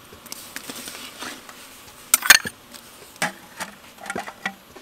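Metal ladle clinking and knocking against a bowl and the rim of a large aluminium cooking pot, as paste is scooped off it into the broth. There are a handful of sharp knocks, the loudest pair about two seconds in.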